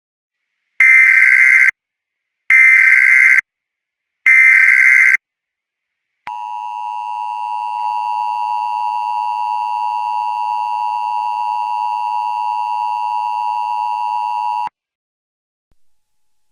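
Emergency Alert System test broadcast: three short buzzing digital SAME header data bursts about a second apart, then the EAS two-tone attention signal, a steady two-pitched tone held for about eight seconds that cuts off abruptly.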